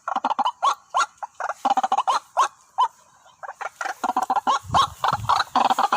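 White-breasted waterhens calling: fast runs of short, repeated notes, several a second, breaking off briefly about three seconds in and then resuming. A brief low rumble sounds about five seconds in.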